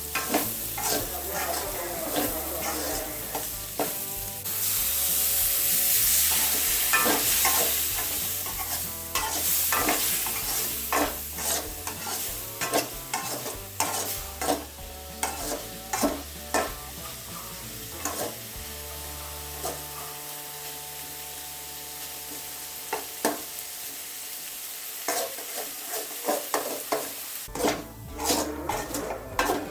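Ash gourd stir-fry sizzling in a pan while a spatula stirs it, scraping and tapping against the pan again and again. The sizzle gets louder about five seconds in.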